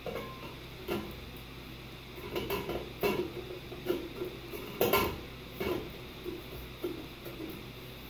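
Glass light cover of a ceiling fan's light kit clinking and scraping against the metal fixture as it is twisted and fitted by hand: an uneven string of sharp clicks and knocks, the loudest about five seconds in.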